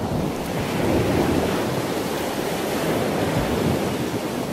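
Steady rushing of ocean surf and wind, an even noise with no tone or rhythm.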